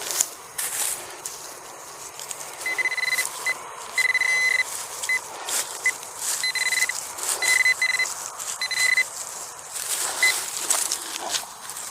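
Teknetics Eurotek Pro metal detector sounding a target tone: a string of high beeps, all at one pitch, some clipped and some held about half a second, as the coil sweeps back and forth over a buried target. Rustling and scraping of the coil and boots in stubble can be heard between the beeps.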